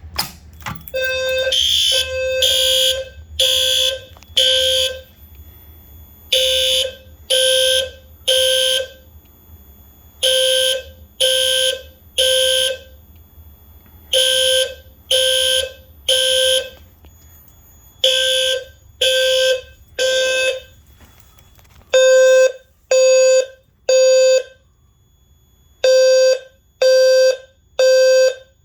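A click, then low-frequency (520 Hz) System Sensor L-series fire alarm horns sounding the temporal-three evacuation pattern: three loud pulses, a pause, and again, about every four seconds. The horns get louder and the background hum drops away about 22 seconds in.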